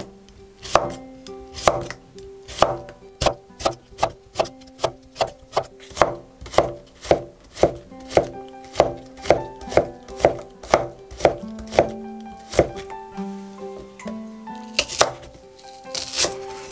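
Wide cleaver-style knife chopping cucumber and then green onion on an end-grain wooden cutting board: sharp knocks of the blade on the wood, about two a second at first and quickening to about three a second, thinning out with a short pause shortly before the end. Soft background music with held notes plays beneath.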